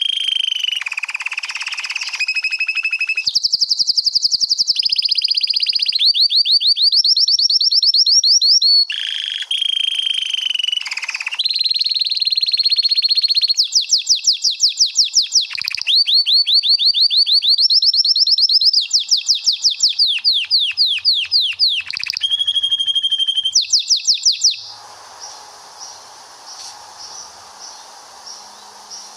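Male canary singing a long rolling song: fast trills of rapidly repeated high notes, each phrase switching to a new note and speed. Near the end the song stops, leaving a much fainter, evenly pulsing high chirping.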